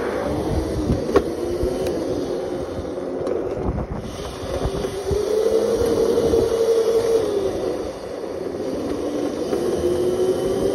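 Razor electric dirt bike's motor and chain whining while riding, the pitch rising and falling as it speeds up and slows, over wind buffeting the microphone. A single sharp knock about a second in.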